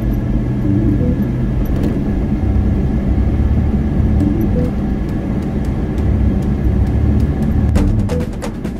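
Motor vehicle running, a loud, steady low rumble, with a few sharp clicks near the end.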